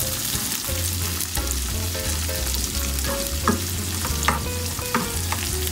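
Bean sprouts and green onion stir-frying in a hot nonstick pan: a steady sizzle, with the spatula scraping and tossing the vegetables now and then.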